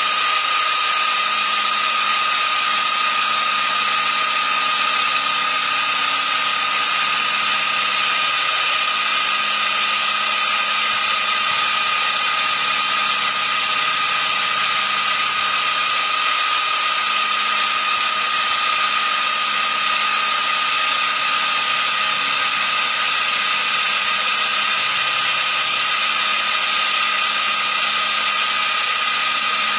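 Small CNC milling machine's spindle running with a steady, constant high whine while the end mill cuts into an aluminium block.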